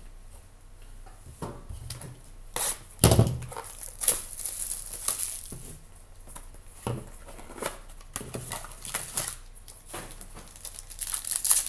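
Small cardboard boxes of trading cards being handled, slid and set down on a table: a run of short rustles and light knocks, the loudest about three seconds in, with crinkling of a foil pack wrapper building near the end.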